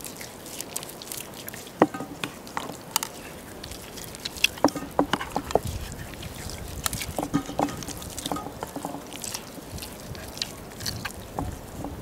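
Raw chicken legs squelching and smacking as hands rub spices into them in an enamel bowl: irregular short wet smacks, busiest in the middle.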